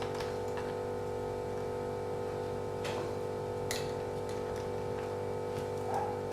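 A steady hum of several held tones, with a few faint light clicks, two of them about three seconds in.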